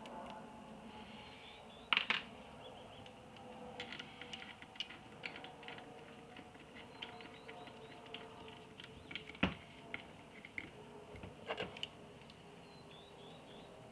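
Small metallic clicks and taps as a bolt and washer are handled and fitted into the bottom of a motorcycle's aluminium fork leg, with a few sharper knocks, the loudest about two thirds of the way through.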